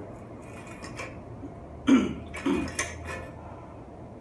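Light metallic clinking of bicycle parts and tools while a mountain-bike frame is worked on by hand, with two louder short sounds about two seconds in, the first the loudest.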